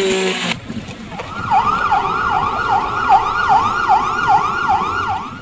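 Emergency vehicle siren on a fast yelp, its pitch sweeping up and down about two and a half times a second. It starts about a second in, after the sound of the previous shot cuts off abruptly.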